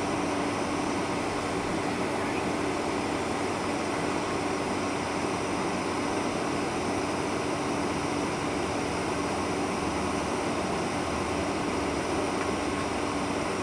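Steady cabin noise inside a Boeing 747-400 taxiing: the jet engines at low taxi power and the air-conditioning hiss blend into an even rush with a constant low hum.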